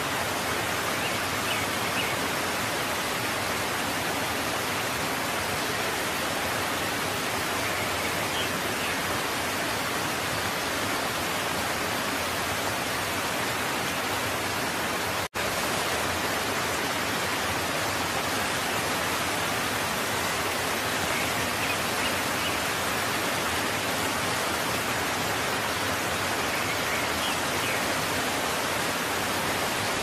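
Waterfall, its falling water rushing steadily with no change in strength. The sound drops out for an instant about halfway through.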